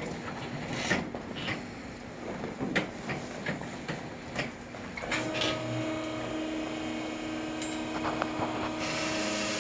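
Rustling and a few light knocks as a patient turns over on a padded treatment table. About five seconds in, a steady machine hum starts and keeps going.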